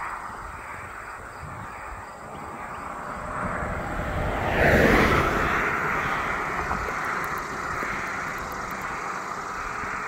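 A car passing close by on an asphalt road: its tyre and engine noise builds over a few seconds, peaks about five seconds in, then fades as it drives away.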